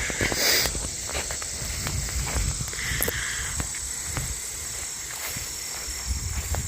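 Footsteps of a person walking outdoors, over a steady high-pitched drone of insects.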